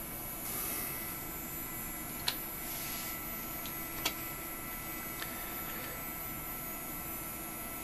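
Two computer keyboard keys clicking, about two seconds in and again about four seconds in, with a couple of fainter ticks after, over a steady hum of computer and room noise.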